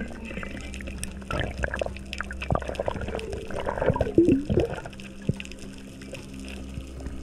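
Underwater sound picked up through a GoPro's dive housing: water moving with scattered clicks and a steady low hum, and a short run of gurgling bubbles about four seconds in.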